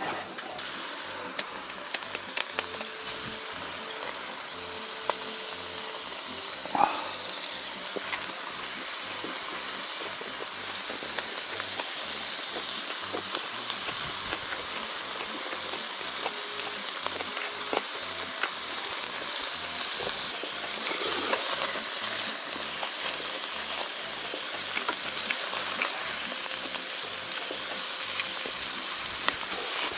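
Spicy marinated pork bulgogi sizzling steadily on a hot grill, with scattered small pops and clicks.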